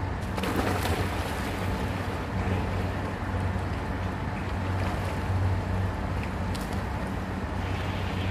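Wind buffeting the microphone in a steady low rumble, with water splashing as a man enters a swimming pool in the first second.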